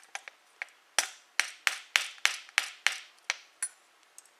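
Light, quick taps of a tool on a snowblower carburetor, gentle so as not to damage the rubber gasket underneath. A few faint taps, then about nine firmer ones at roughly three a second from about a second in.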